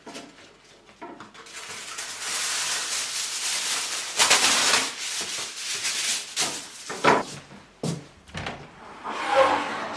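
Aluminium kitchen foil being pulled off its roll and crinkled: a dense rustling hiss, loudest about four seconds in, followed by a couple of sharp clicks.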